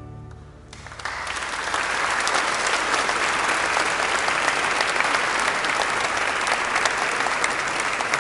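The organ's final chord dies away, and about a second in audience applause breaks out and keeps going steadily.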